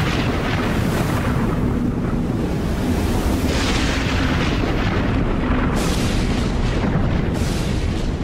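Cinematic logo-intro sound effects: a steady, loud, deep storm-like rumble, with brief swells of hiss rising over it four times.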